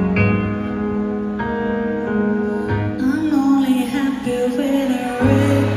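Live rock band music, loud: held keyboard and guitar chords ring steadily. A singing voice comes in about three seconds in, and a low bass note enters near the end.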